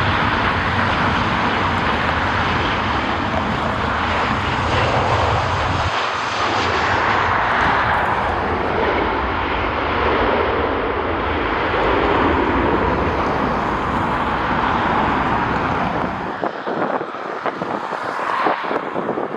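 Jet airliner engines passing close, a loud steady rushing noise. About sixteen seconds in the low rumble drops away, leaving gusty wind buffeting the microphone.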